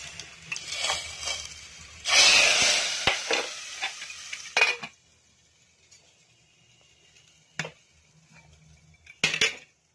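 Hot ghee tadka with cumin poured into cooked arhar dal, sizzling loudly for about two and a half seconds, with clinks of the metal pan against the pressure cooker. It then goes quiet except for a click and a couple of metal knocks near the end.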